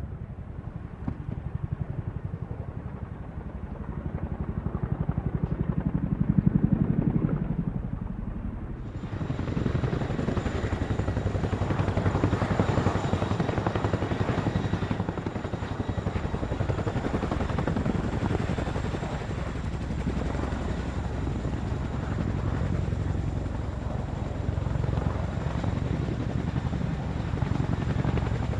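Helicopter running steadily, a rumble with a fast even rotor beat. About nine seconds in, the sound changes abruptly and becomes brighter.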